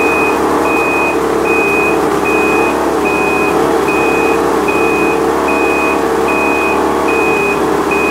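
BRP Ski-Doo 800 E-TEC two-stroke twin engine running steadily at about 2000 rpm while being put through its storage procedure. Over it, a high electronic beep repeats evenly, a little more than once a second.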